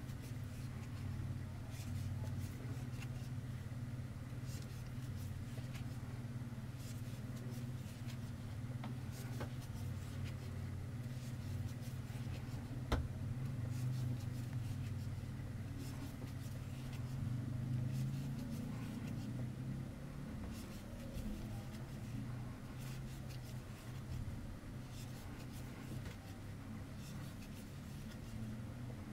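Faint scratching and rustling of a metal crochet hook pulling white cotton yarn through single-crochet stitches. A steady low rumble runs underneath and fades about two-thirds of the way through, and there is one sharp click near the middle.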